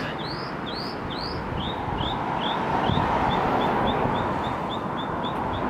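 A bird repeating a short rising chirp over and over, about three a second at first and quickening to about four a second, over a steady hum of street traffic.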